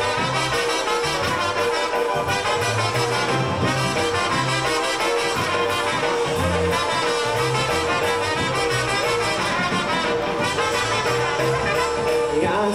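Live polka band playing an instrumental passage: brass carrying the tune over a bouncing bass line and a steady drum beat.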